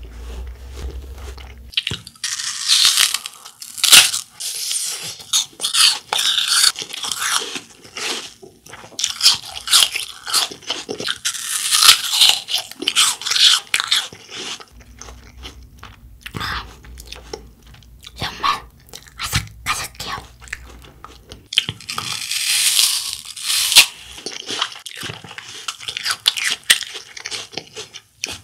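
Crisp raw apple being bitten and chewed close to the microphone: wet, crackling crunches. The chewing comes in two long loud spells, with quieter chewing between them in the middle.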